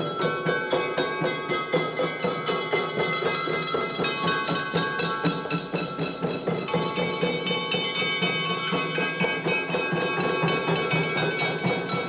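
Music of hand-beaten frame drums keeping a steady, quick beat, about three to four strokes a second, under a line of held tones.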